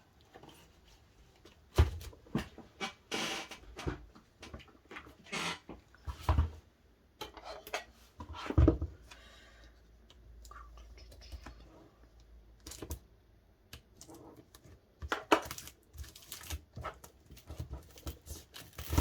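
Hands handling DVD packaging and photocards: a string of clicks, taps and rustling as cases and sleeves are opened and moved about.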